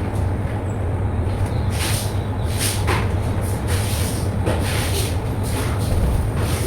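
Wet vacuum cleaner running with a steady low drone, with repeated short hissing bursts of spray and suction every second or so.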